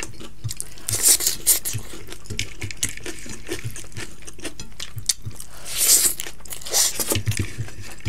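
Close-up eating sounds: hands scooping moist rice and dal from plates and mouths chewing, a string of irregular wet clicks and smacks with louder bursts about a second in and again near six seconds.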